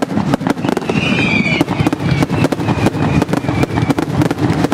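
Ponte Fireworks night aerial fireworks display: a dense, rapid run of loud bangs and crackling shell bursts. Shrill whistles glide in pitch about a second in.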